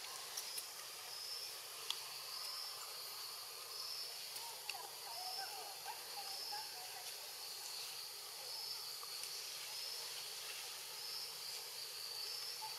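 An insect calling outdoors in short, high-pitched pulses, about one a second, over a steady hiss of ambience. A few faint chirps come around the middle, with several small clicks.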